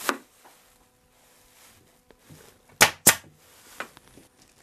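Pneumatic upholstery stapler firing twice in quick succession, about a third of a second apart, driving staples through the tucked muslin into the wooden seat rail.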